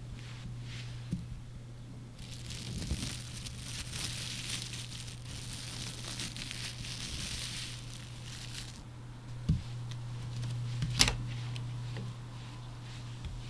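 Clear plastic wrap crinkling as hands handle it, for about seven seconds; then a dull thump and, about a second and a half later, a sharp knock.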